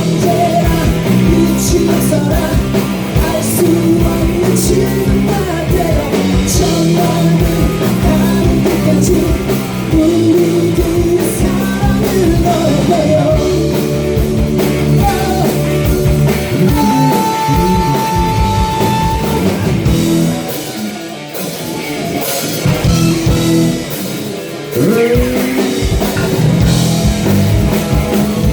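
Live rock band playing a song, with drum kit, guitar and a singer's lead vocal. A long held note comes about two-thirds of the way through, and the band drops in level briefly a little later before coming back in full.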